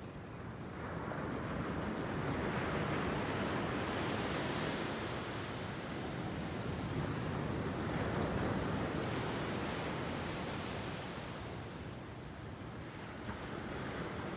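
Ocean surf breaking and washing up the beach: a long swell of rushing noise that builds about a second in, holds for several seconds and eases off near the end.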